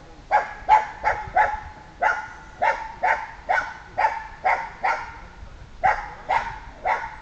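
Sealyham terrier barking in a steady run, about two barks a second, baying at a wild boar, with a brief break just after five seconds.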